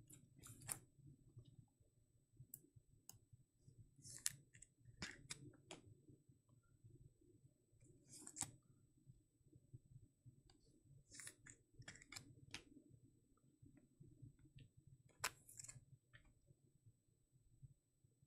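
Trading cards and plastic toploaders being handled: faint, irregular clicks and rustles over a low room hum.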